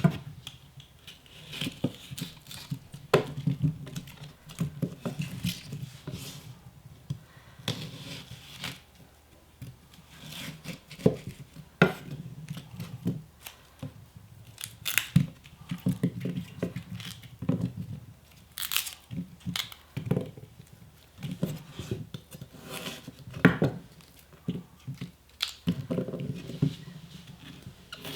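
Papery onion skins crackling and tearing by hand as onions are peeled, with irregular sharp clicks throughout.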